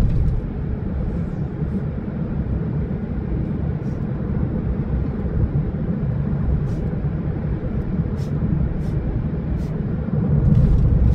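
Steady low rumble of tyre and engine noise inside a moving car's cabin, with a slight swell near the end.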